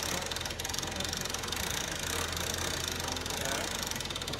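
A machine engine or motor running steadily, with a low hum and a fast, even pulsing.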